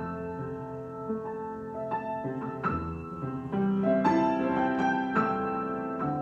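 Piano improvisation: notes and chords struck and left to ring, growing louder with fuller chords about four seconds in.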